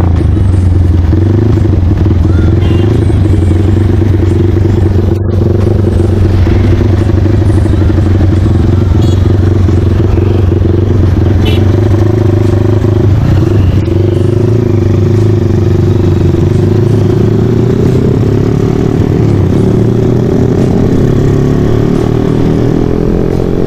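Honda Tiger's single-cylinder four-stroke engine running through a CJDW racing muffler, heard from the rider's seat while riding. It holds a steady drone, then climbs in pitch over the last few seconds as the bike accelerates.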